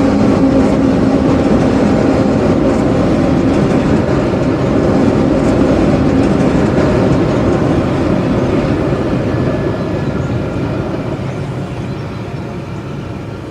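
Long H0 model train of tank cars, double-headed by two Kleinbahn ÖBB class 1044 electric locomotives, rolling along the layout track with a steady rattle of wheels over rail joints and motor hum. It slowly fades over the last few seconds as the train moves away.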